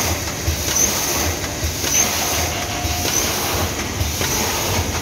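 Automatic pulses pouch packing machine running: a steady mechanical clatter with low knocks repeating a few times a second as it forms, fills and seals pouches.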